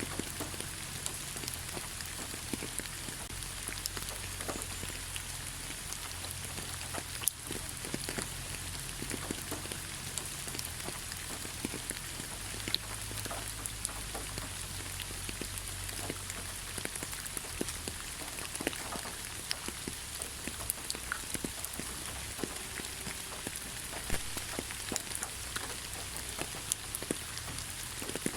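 Steady light rain falling on leaves, a soft hiss with many separate drops pattering.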